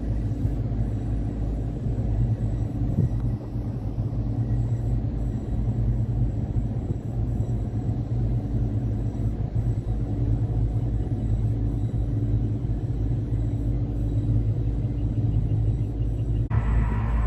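Steady low rumble with a low hum. About sixteen seconds in, a different sound with higher tones comes in.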